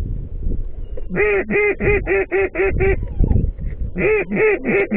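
Mallard-style quacking: two runs of loud, evenly spaced quacks, about four a second, like a hen mallard's hail call.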